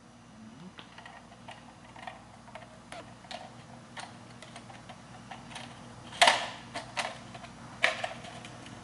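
Light plastic clicks and clacks from a plastic fuel pump module housing being handled and turned over, with two louder clacks about six and eight seconds in.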